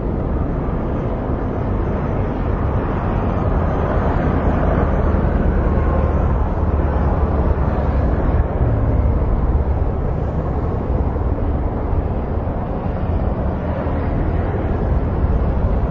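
A steady, even engine rumble.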